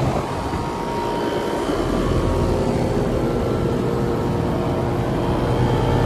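2006 five-ton American Standard Allegiance 13 outdoor condensing unit running: the condenser fan's steady rush of air with a steady hum beneath it.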